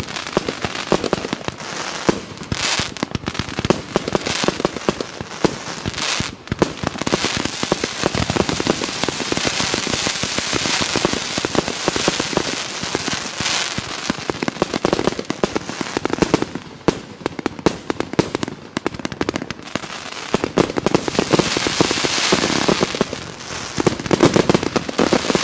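A 132-shot fan-pattern, mixed-calibre firework cake firing in a rapid, unbroken volley of launches and bursting shells with crackling.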